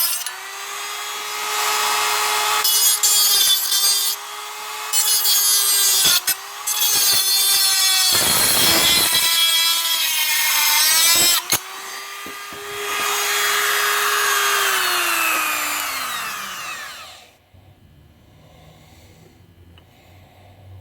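Central Pneumatic #68745 1/8" mini air die grinder running at a high steady whine, grinding on a workpiece in rough, gritty stretches that come and go. About three-quarters of the way through, the air is cut off and it spins down, its whine falling in pitch until it stops.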